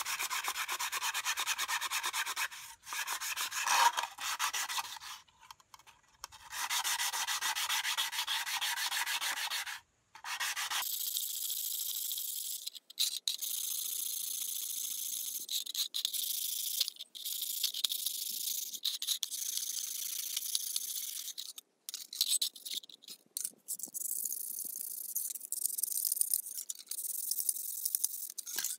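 Rubbing rust off an old sheet-metal money-box lid by hand with rapid back-and-forth strokes. The first ten seconds or so are fuller, with a few short breaks. After that the rubbing turns thinner and higher, with brief pauses.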